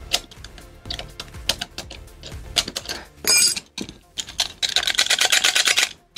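Clicks and knocks of hand tools on a hard drive's metal parts during disassembly. A short high ringing tone sounds around the middle, and a fast, even run of clicking lasts about a second and a half near the end.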